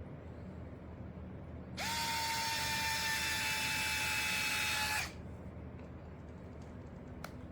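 Cordless electric screwdriver running for about three seconds, driving a screw into the differential case: a steady motor whine that starts about two seconds in and cuts off sharply. A couple of faint clicks of small parts follow near the end.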